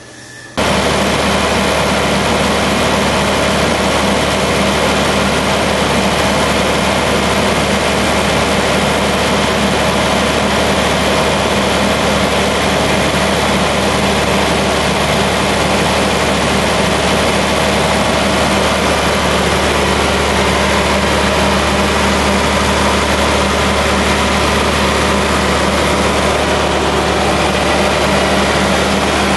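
John Deere 4230 tractor's diesel engine running steadily at a constant speed, heard up close by the engine bay. The sound cuts in abruptly about half a second in.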